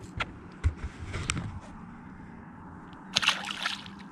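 Water sloshing beside a fishing boat with a few light knocks, then a louder splash about three seconds in as the released walleye goes back into the river.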